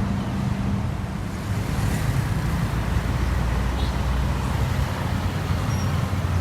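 A heavy vehicle's engine running steadily, a low rumble with no sudden changes.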